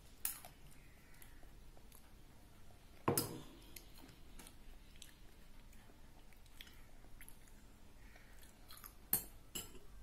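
Metal spoon working in a small ceramic bowl as a child eats: faint chewing and spoon scraping, with a few sharp clinks of spoon on bowl, the loudest about three seconds in and two more close together near the end.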